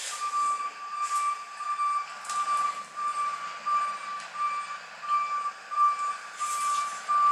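High-pitched electronic beeping that pulses steadily in the background, over close-up chewing and knife and fork scraping a plate.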